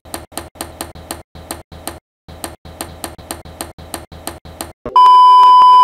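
Rapid, evenly spaced sharp clicks, about four a second with a short break partway through. About five seconds in, a loud steady test-tone beep from a colour-bars reference signal cuts in.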